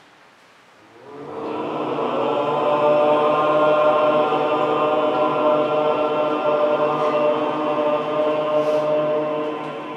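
Group of voices chanting a single long mantra note in unison. It swells in about a second in, is held at a steady pitch, and begins to fade near the end.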